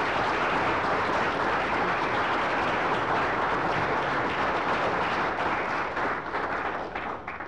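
Large audience applauding steadily, the clapping thinning to scattered separate claps near the end and dying away.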